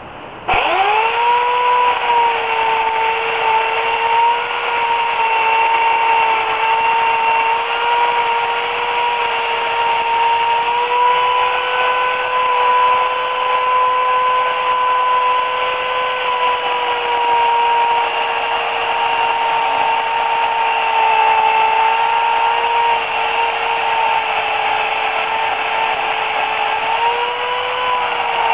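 Remington Limb N Trim electric chainsaw (8-amp motor, 14-inch bar) switching on about half a second in and running steadily with a high motor whine while cutting wood, its pitch sagging and recovering slightly a few times under load.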